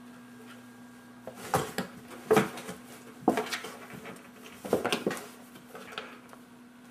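Two cats play-fighting in a cardboard box: a handful of sudden scuffles and bumps against the cardboard, about six in all, over a steady low hum.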